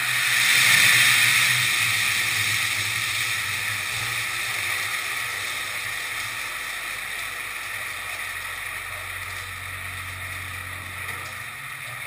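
Hot oil in an outdoor turkey fryer violently sizzling and boiling over as a turkey is lowered in, the spilled oil catching fire: a loud rushing hiss that swells about a second in and then slowly dies down.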